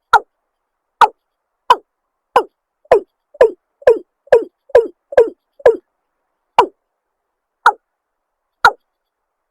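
A watercock (cúm núm) calling: a series of short, deep 'kok' notes, each falling in pitch, about one a second, speeding up to a quick run in the middle of the series and then slowing again.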